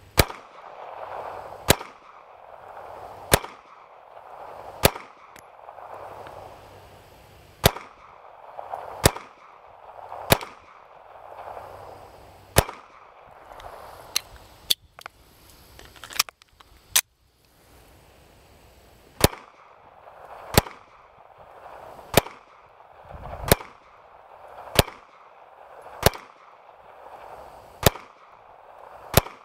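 Walther CCP 9mm pistol fired in slow, deliberate single shots, roughly one every second and a half, about twenty shots in all with a short pause a little past the middle.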